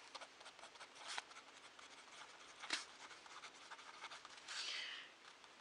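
Ballpoint pen writing on lined notebook paper: faint scratching of the pen strokes, with two sharper ticks.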